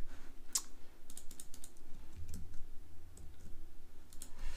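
Computer keyboard being typed on: irregular keystrokes, with a quick run of them about a second in and a few more near the end.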